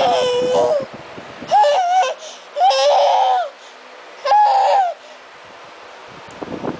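A hungry, sleepy baby fussing: four short, whiny, wavering cries, each under a second long, with brief pauses between them.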